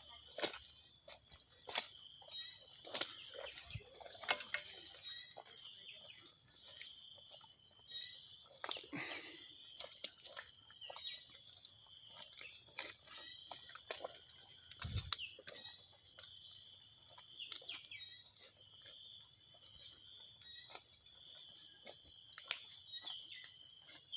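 Insects trilling steadily at a high pitch, with short repeated chirps and scattered soft clicks and rustles.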